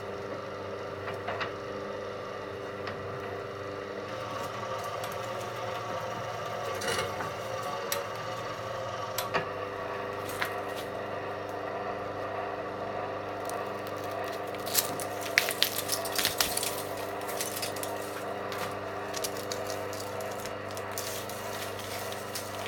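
Small electric motor (0.18 kW) of an MS-25 cable-stripping machine running with a steady hum, with scattered scrapes and clicks as cable is fed through its blade. The clicks and scrapes come thickest a little past the middle.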